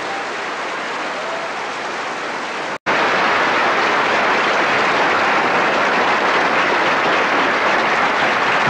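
Audience applauding after a song, with a brief gap about three seconds in, after which the applause is louder.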